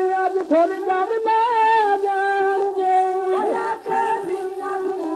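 Old 78 rpm shellac record of Punjabi dhadi music: a melody with sliding pitch over a steady held note.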